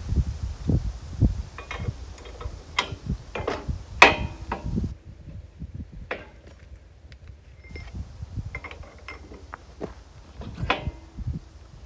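Wrench and socket working nuts off the steel bolts of a tractor backhoe subframe: irregular metallic clicks, clinks and knocks, busiest in the first five seconds with the loudest clank about four seconds in, then a quieter spell and a second run of clicks near the end.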